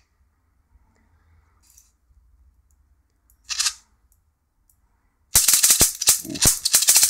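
High-voltage arcs from a Mitsubishi CRT monitor's flyback transformer jumping an air gap to the steel chassis. A short hiss comes about three and a half seconds in. A loud, rapid train of sharp crackling snaps starts suddenly a little after five seconds in, as the flyback's built-in capacitor discharges hard across the gap.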